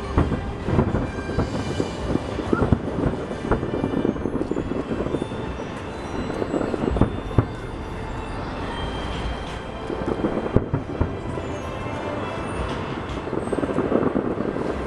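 Fireworks about a mile away bursting in quick succession: a continuous rumble and crackle with many sharper bangs standing out, the strongest about seven and ten seconds in.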